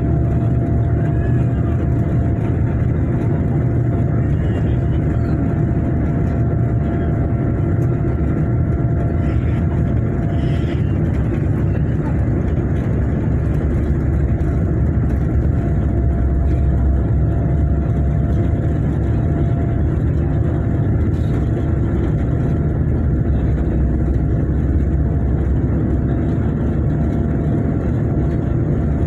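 Steady low rumble of a Boeing 787 Dreamliner's cabin, from the engines and airflow, with faint steady whining tones above it.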